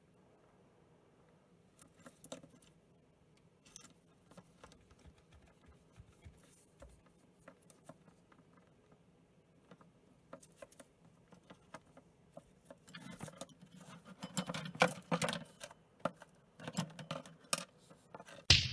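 Cockatiel playing with small toys, pecking and knocking them so they click and rattle. Scattered light taps at first, then a busier run of clattering and rustling over the last several seconds.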